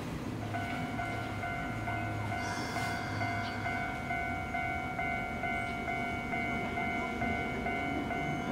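Hankai Tramway Mo 601-type tram standing at a stop, its on-board machinery setting up a steady whine about half a second in. The whine has an even pulse of brief breaks and runs over a low street rumble.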